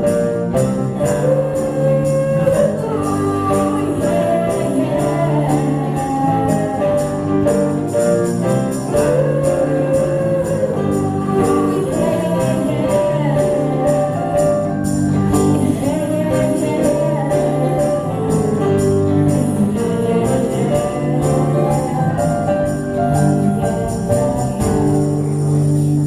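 A band playing a song on acoustic instruments, with a sung melody over steady low notes and a regular jingling percussion beat.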